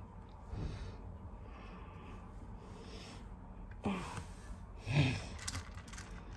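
A person breathing audibly through the nose, with a heavier breath about five seconds in, followed by a few faint light clicks.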